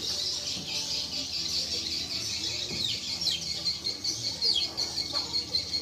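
Small songbird calling: rapid, high-pitched chirps and trills run on continuously, broken by short down-sliding whistled notes.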